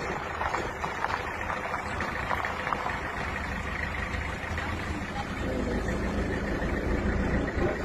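Steady engine and road noise of a moving vehicle, heard from inside it as it drives along a rough road.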